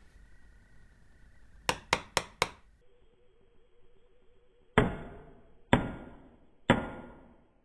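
Blows on a wood chisel set upright in a hardwood scrap, driving it into the wood: four quick light taps about two seconds in, then three heavier blows about a second apart, each dying away briefly.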